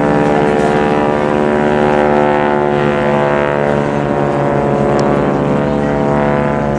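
Engine of a single-engine propeller aerobatic plane droning steadily, with a slight slide in pitch about halfway through as it passes.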